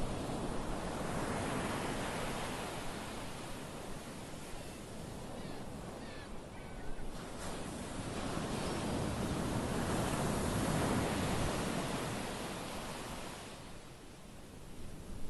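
Small sea waves washing in over shoreline rocks, the surge swelling twice and easing off near the end.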